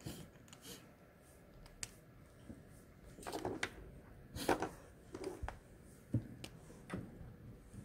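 Scattered light clicks and knocks of markers being picked up, handled and set down on a desk, several short sounds over a few seconds, the loudest about four and a half seconds in.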